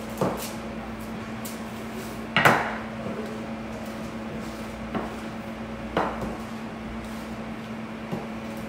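A wooden rolling pin knocking on the counter as tart dough is rolled out thin: about five sharp knocks, the loudest about two and a half seconds in, over a steady low hum.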